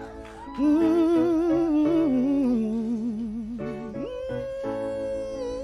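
Wordless soul vocal ad-lib over soft instrumental backing. The voice comes in about half a second in and slides between held notes with heavy vibrato, then steps up to a higher held note about four seconds in.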